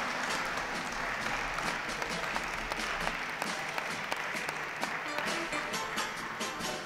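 An audience applauding steadily, a dense patter of clapping that thins out toward the end, over background music.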